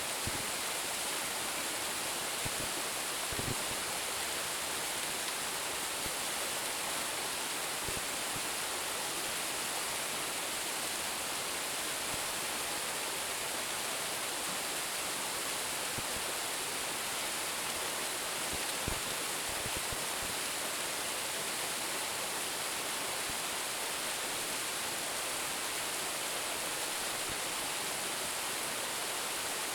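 Steady rush of a waterfall of about ten metres, water falling and splashing in an even hiss, with a few brief low knocks now and then.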